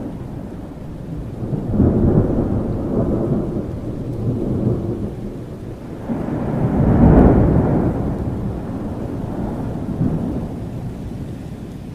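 Thunderstorm: rolling thunder over steady rain, with a rumble swelling about two seconds in and a louder one around seven seconds in, each dying away over a few seconds.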